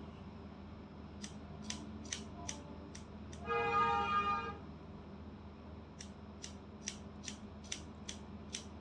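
Hair-cutting scissors snipping hair in quick runs of crisp snips: about six in the first three seconds, then about eight more from six seconds on. Around three and a half seconds in, a steady pitched tone sounds for about a second and is the loudest sound.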